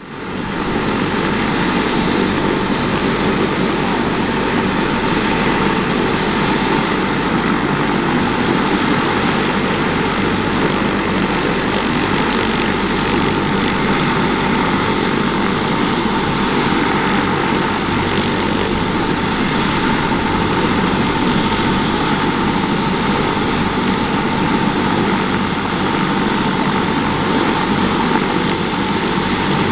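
Airbus AS350B3 Ecureuil helicopter running on the ground, its Turbomeca Arriel 2B turboshaft and turning main rotor making a steady, loud noise with a high steady whine. The sound fades in over the first second.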